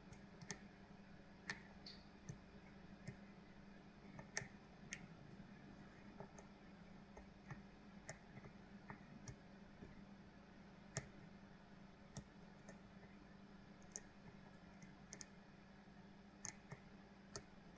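Faint, scattered clicks of a lock pick working the pins inside a Kale 164 BNE lock cylinder, roughly one click a second, a few of them sharper.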